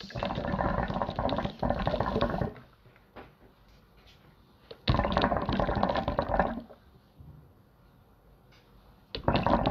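Water pipe bubbling as someone draws through its mouthpiece: three draws of about two seconds each, a few seconds apart.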